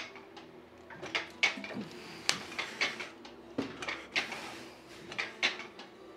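Irregular clinks and knocks of gym equipment being handled and moved, about a dozen, over a faint steady hum.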